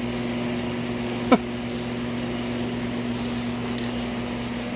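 Steady low hum of a running machine in the room, with one brief sharp click about a second and a half in.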